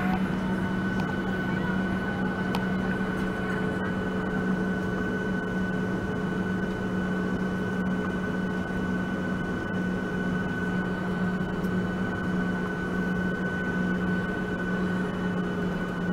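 Airliner cabin noise while taxiing: the engines run at low power, a steady drone with a steady whine held over it.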